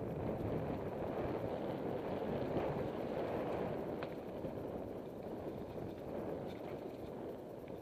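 Mountain bike rolling down a dirt singletrack: a steady rush of wind on the microphone mixed with tyre rumble, with a few faint clicks.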